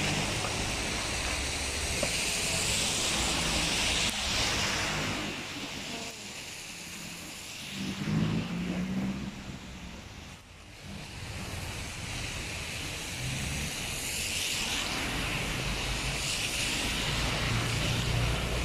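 Steady hiss of rain and water on a flooded street, with a low rumble underneath. The hiss fades for a few seconds around the middle, lowest about ten seconds in, then returns.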